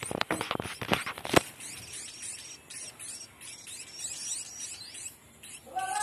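Hand-fed munia (emprit) chicks giving rapid, high, thin begging chirps over and over, with a louder, lower-pitched call near the end. A flurry of clicks and taps runs through the first second and a half.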